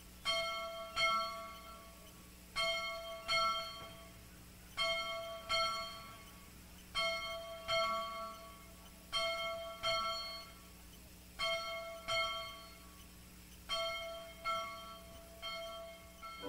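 Church bell struck in pairs, a pair of strikes about every two seconds, each strike ringing out and fading before the next.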